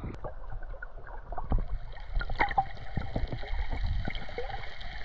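Water splashing and lapping: many small, irregular splashes over a low rumble.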